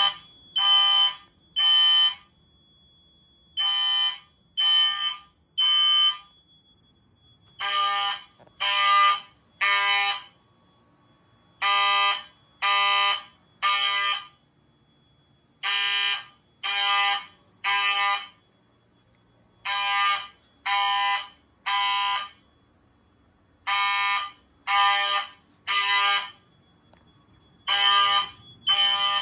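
Fire alarm horns sounding in the temporal-three (code 3) evacuation pattern: three short blasts, a pause, and then again, about every four seconds. The system has just been put into alarm from a T-bar pull station. A thin steady high tone carries on between the blasts.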